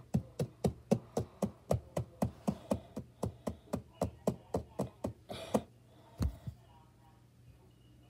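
Rapid, evenly spaced knocks, about four a second for some five seconds, then a brief rustle and a single dull thump.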